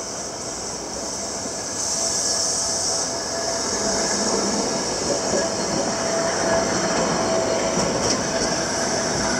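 Former Meitetsu streetcar running past close by on street track: wheels rolling on the rails, getting louder about two seconds in, with a faint steady tone through the middle of the pass.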